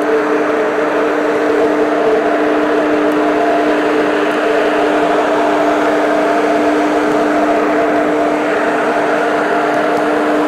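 Cruise ship's deck machinery running with a loud, steady drone: an even hum of several held tones over a rushing noise.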